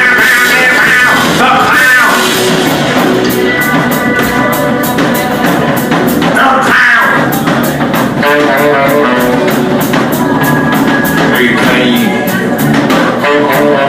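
Live band playing an instrumental stretch of a rock-soul song, with guitar and a drum kit keeping a steady beat.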